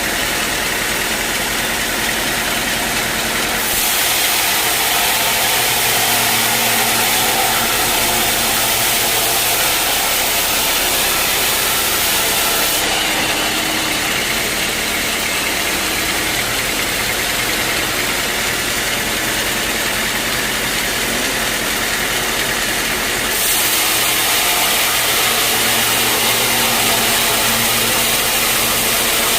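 Sawmill saw running steadily as it cuts acacia logs, a loud even noise with a motor hum underneath. The sound grows louder and hissier about four seconds in and again about 23 seconds in.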